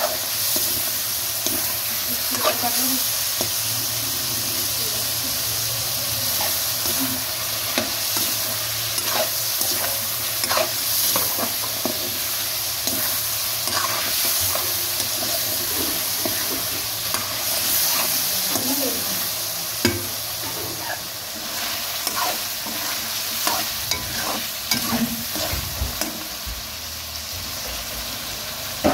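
Chicken pieces sizzling in hot oil in a steel pan as a metal spatula stirs them. The spatula scrapes the pan and clicks against it many times over the steady frying hiss.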